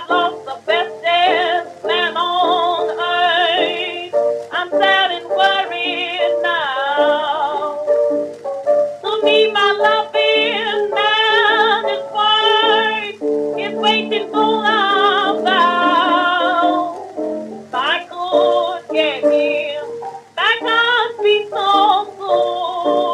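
A 1922 acoustic-era OKeh 78 rpm shellac blues record playing in a restored transfer: a woman sings with wide vibrato over piano accompaniment. The sound has the thin, narrow range of an early acoustic recording, with little above the upper midrange.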